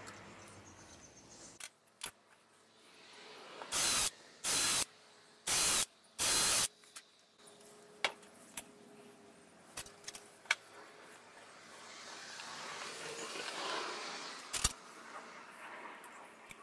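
Four short bursts of spray hiss, each about a third of a second, starting and stopping sharply, followed by scattered light clicks and knocks.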